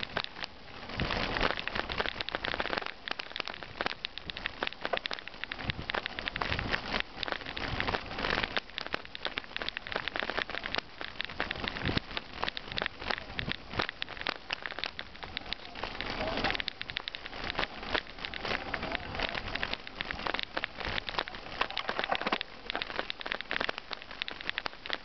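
Bicycle tyres crunching and crackling over a loose gravel track at riding speed, with the bike rattling over the bumps in a dense, irregular patter.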